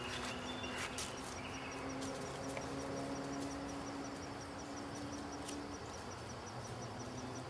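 Outdoor ambience with an insect chirping in a rapid, even pulse of about four to five high ticks a second, over a low steady hum that fades out about six seconds in.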